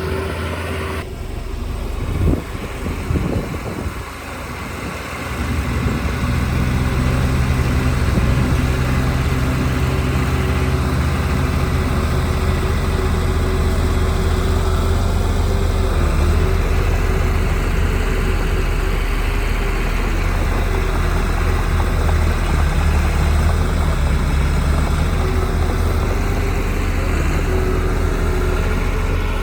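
Heavy diesel engine of earthmoving machinery running steadily, with a few knocks about two to three seconds in; it grows louder about five seconds in and holds there.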